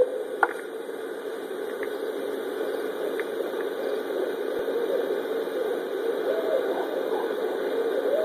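Barred owls hooting faintly, with short gliding calls about six and seven seconds in and another starting near the end, over a steady background noise. A couple of sharp clicks come right at the start.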